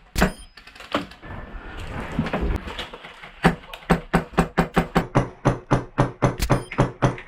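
Wolverine MTW HPA airsoft rifle firing: a few single shots in the first second or so, then a fast, even string of about four to five shots a second from about three and a half seconds in.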